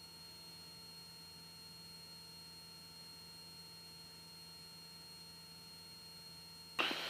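Faint steady electrical hum and hiss with a few thin, steady whining tones: the noise floor of the cockpit audio feed, with no engine or propeller sound coming through.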